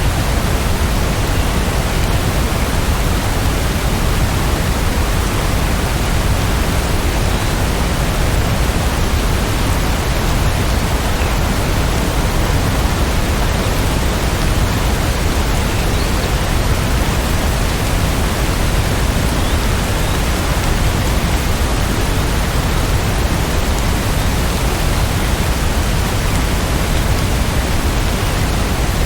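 Steady heavy rain: a dense, even hiss that does not change.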